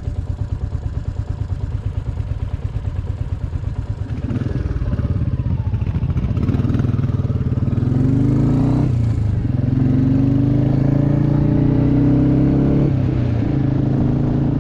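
Royal Enfield motorcycle engine running under way, first with a steady pulsing beat, then from about four seconds in its note rising and dropping in steps as the bike accelerates and changes gear, over a steady rush of wind.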